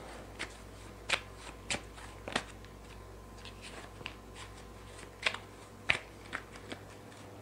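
Deck of cards being shuffled by hand: a string of short, irregular snaps and flicks of card edges, about a dozen in all.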